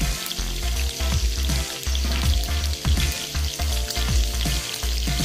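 Chunks of cooked mutton frying in hot oil in a pan, sizzling steadily now that the stock has cooked off and ginger garlic paste has been added.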